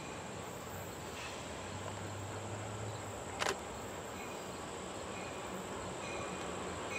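Steady high-pitched buzz of summer insects, with one sharp click about halfway through.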